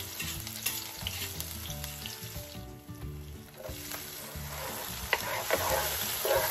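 Chopped onions sizzling as they fry in hot olive oil in a skillet. The sizzle grows louder near the end as a wooden spoon stirs them, with a few light knocks of the spoon on the pan.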